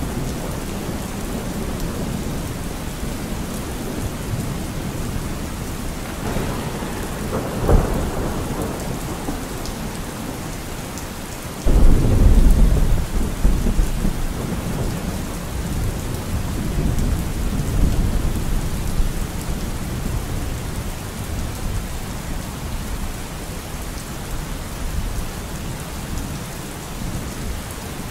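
Steady rain with thunder. A low rumble comes about seven seconds in, and a sudden loud thunderclap about twelve seconds in rumbles away over several seconds.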